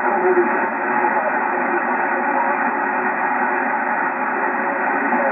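Amateur radio receiver audio on the 10-meter band: steady, band-limited static hiss with faint traces of a weak single-sideband voice in it.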